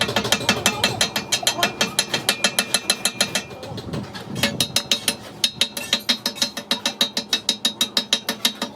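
Rapid, evenly spaced metallic clicks or taps, about six a second, with a bright ring to each, in two runs broken briefly about four seconds in: metal being worked on the truck axle housing.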